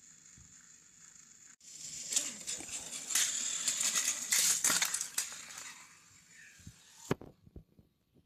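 Battery-powered plastic toy trains clattering and rattling on and against plastic track, with a steady high whine at first, then loud irregular clicking and rattling. It dies away, with a sharp knock about seven seconds in and a few small clicks.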